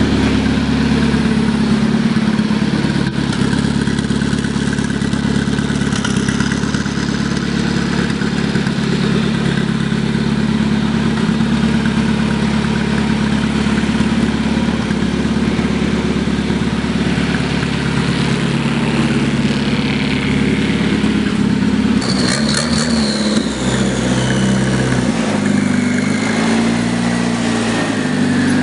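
Turbocharged tractor engine running loud and steady at idle, then revved up and down several times in the last few seconds, with a high whine that falls slowly in pitch.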